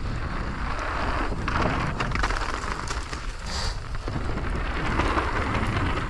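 Wind buffeting the microphone of a helmet-mounted action camera during a downhill mountain-bike run, over a steady rumble and scattered rattles and clicks from the bike on rough trail.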